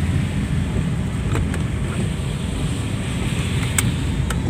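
Car driving on a wet road, heard from inside the cabin: a steady low rumble of engine and tyres, with a few light ticks.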